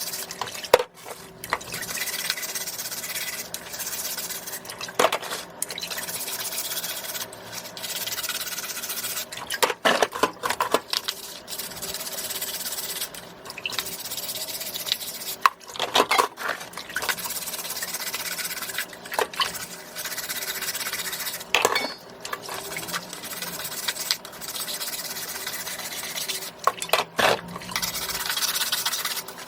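Scallops being wiped by hand: a steady close-up rubbing hiss, with short knocks and clicks every few seconds as they are handled.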